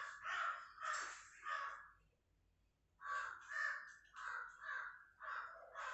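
A crow cawing repeatedly: a run of about four harsh caws, a pause of about a second, then another run of about six caws.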